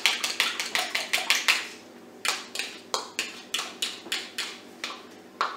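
A utensil clicking rapidly against a small bowl as an egg is beaten, then slower separate taps through the second half.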